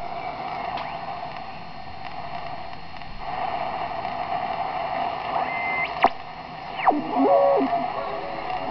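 Homebrew WBR regenerative shortwave receiver being tuned with its regeneration set just into oscillation: a steady rush of band noise, then, from about five seconds in, heterodyne whistles that sweep up and down in pitch as the tuning passes across carriers.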